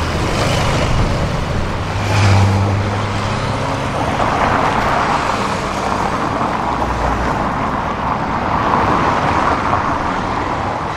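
Road traffic with motorcycles and cars driving past in a convoy, engines and tyres making a steady rush. One motorcycle engine swells loudest about two seconds in as it passes close.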